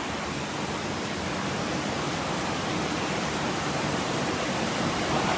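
Steady rush of water with no break, growing slightly louder toward the end.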